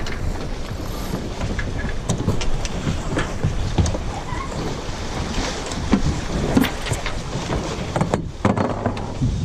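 Wind buffeting the microphone of an action camera on a sailboat under way, with rushing water and scattered clicks and knocks. The wind noise dips briefly near the end.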